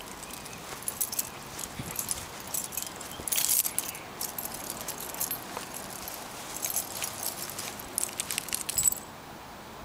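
Small metal pieces jingling and clinking in irregular clusters, loudest about three and a half seconds in and again near the end, stopping abruptly about nine seconds in.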